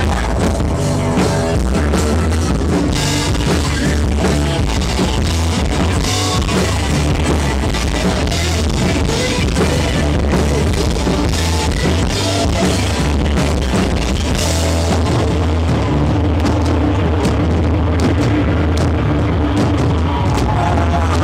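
Live rock band playing an instrumental passage with drum kit and guitars, no singing, heard loud through a camera microphone in a club.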